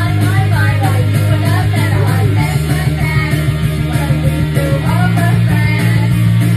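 Loud rock song with a steady bass line, and women singing along over it into karaoke microphones.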